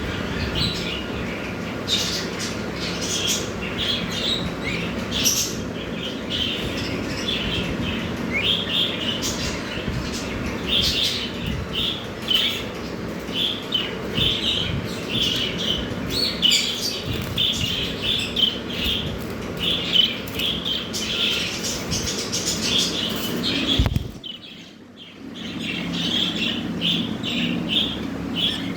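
A flock of budgerigars chattering with rapid short chirps, with wings fluttering at times. The sound drops away for about a second near the end, then the chatter resumes.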